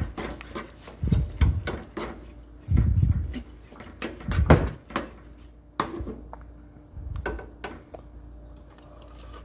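A utensil clicking and scraping against a small metal saucepan as rice is stirred, among several dull low thumps.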